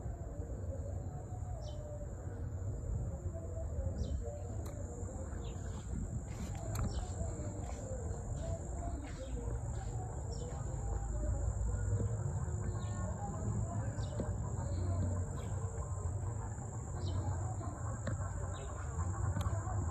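Outdoor ambience: a steady high-pitched insect drone with many short bird chirps scattered throughout, over a continuous low rumble.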